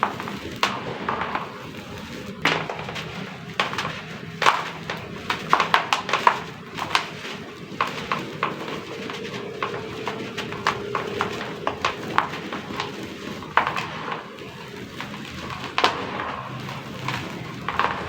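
Crispy dried sand-cement crumbling into a tub of water: many irregular sharp crackles and knocks, bunched most densely around the middle.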